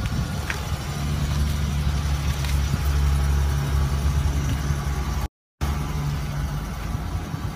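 2017 Dodge Challenger SXT Plus's 3.6-litre V6 idling steadily at the exhaust tip, just after a remote start. A brief gap of silence comes about five seconds in.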